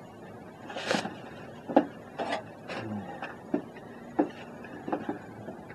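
Handling noise from a long measuring rule being picked up and held out toward the camera. A short rustle about a second in, then a run of sharp clicks and knocks, roughly one every half second to a second.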